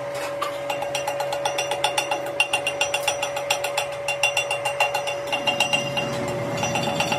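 Rapid, evenly spaced ratcheting clicks from a hand tool working the jaws of a large lathe chuck, several clicks a second, over a steady hum.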